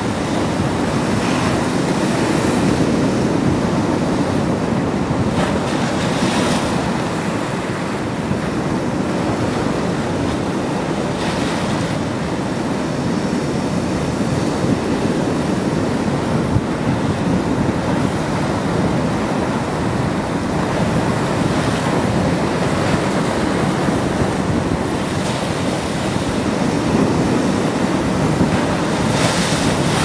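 Surf washing against the shore in a steady rush, with a few louder washes, and wind buffeting the microphone.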